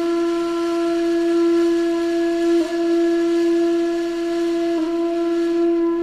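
A long held flute-like wind-instrument note at one steady pitch, briefly re-sounded twice: the viral TikTok sound said to remind cats they were worshipped in ancient Egypt.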